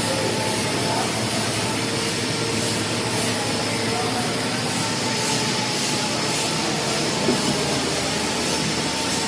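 Steady, loud industrial noise: an even rush with faint steady hums, and a single sharp click about seven seconds in.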